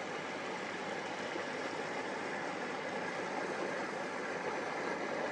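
A motor cruiser passing on the river: a steady low engine hum under the rushing of its wash, slowly growing louder.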